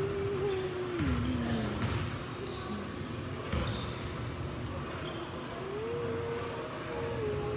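A basketball bouncing on a gym floor, a few irregular thumps during play, echoing in a large gym.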